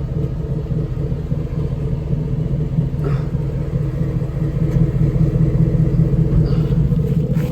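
Truck engine running steadily with a low rumble, a little louder in the second half.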